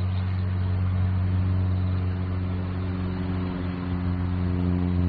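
Light aircraft's piston engine and propeller running with a steady drone. More overtones come in and it grows slightly louder near the end.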